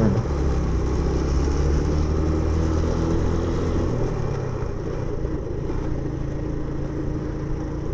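Suzuki Intruder 125's single-cylinder four-stroke engine running under way, with a steady engine note that eases off about halfway through.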